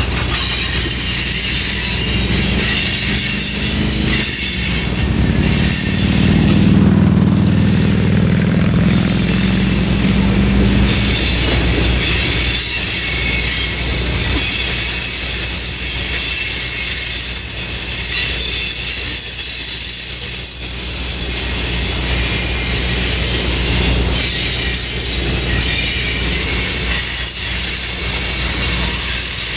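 Freight train cars rolling past on steel wheels, with a steady rumble and several high-pitched wheel squeals that come and go, plus some clickety-clack over the rail joints.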